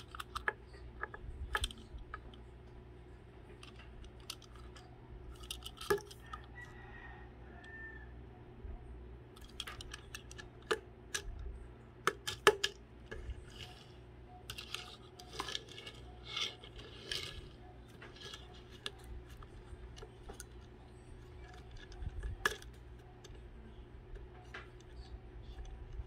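Small clicks, taps and scrapes of a die-cast toy van with plastic parts being handled and rolled on a tabletop, scattered irregularly over a steady low hum.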